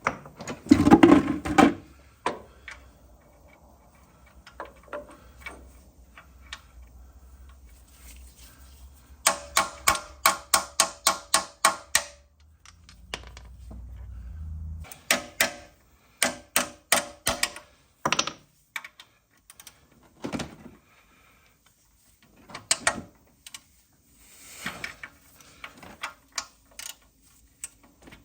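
Hand tools clinking and knocking on metal, with a run of quick, even ratchet-wrench clicks at about four a second midway through and more clicking a few seconds later.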